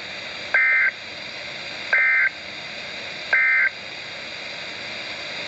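Emergency Alert System end-of-message signal: three short, buzzy bursts of two-tone digital data, about 1.4 seconds apart, over a steady hiss.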